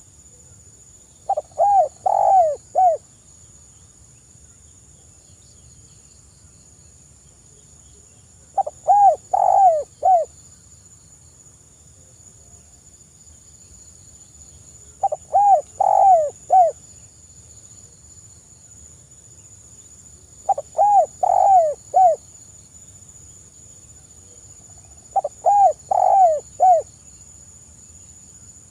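Spotted dove cooing: five phrases about five to six seconds apart, each a quick run of four or five soft coos.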